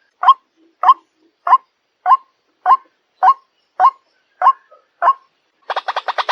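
White-breasted waterhen calling: nine short, identical calls about every 0.6 s. Near the end a fast, stuttering run of calls begins.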